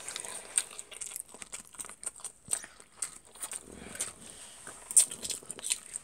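Scattered small clicks, taps and rustles from food in paperboard boxes being handled on a plate, with one sharper tap about five seconds in.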